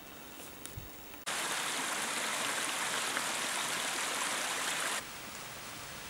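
Steady rushing hiss of running water. It comes in suddenly about a second in and drops to a softer hiss near the end.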